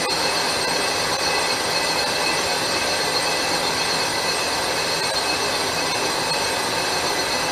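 Metal lathe turning a cast-iron vented brake rotor under a cut from a Sandvik insert: a steady machining noise with a high-pitched ringing whine over it.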